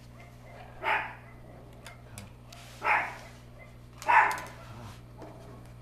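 A dog barking three times, each bark short and loud.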